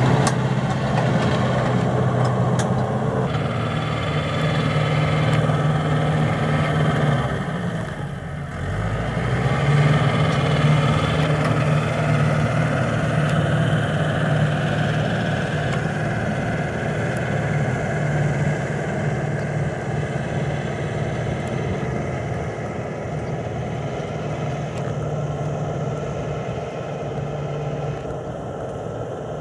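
Tractor engine running steadily while ploughing a rice field. About eight seconds in its note briefly drops, then climbs back up.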